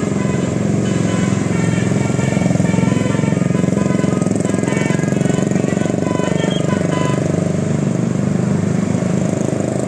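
Bus's multi-tone telolet air horn playing a quick stepping tune over a running diesel engine; the tune stops about seven seconds in and the engine carries on.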